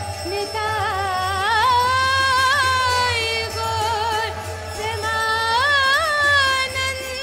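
Devotional kirtan singing: a woman's voice holds long notes that slide upward and waver in ornaments, over a steady harmonium drone.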